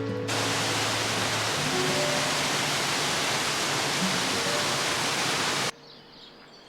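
A loud, steady rushing noise that starts suddenly and cuts off suddenly about a second before the end, with soft background music beneath it. After the cut, faint birdsong.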